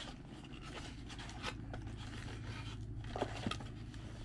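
Cardboard subscription box being opened by hand: the lid lifted and the box handled, with light scraping and a few soft clicks of cardboard over a steady low hum.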